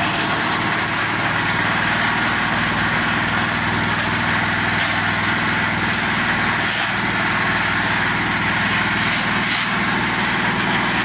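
Portable drum concrete mixer's engine running steadily, with a few brief scrapes of a shovel in wet concrete.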